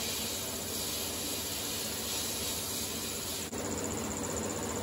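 Sandblaster gun in a blast cabinet running, a steady hiss of abrasive blasting paint and rust off a sheet-metal belt cover, fed with air from two compressors. The hiss drops out for an instant about three and a half seconds in.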